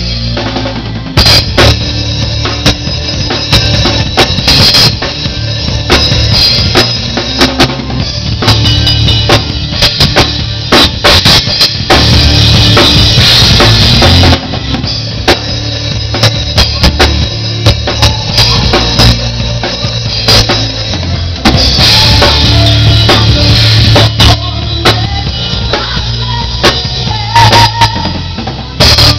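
Live band music dominated by a drum kit played up close: rapid kick-drum, snare and cymbal strikes over low sustained bass notes. A wash of crash cymbals builds about twelve seconds in.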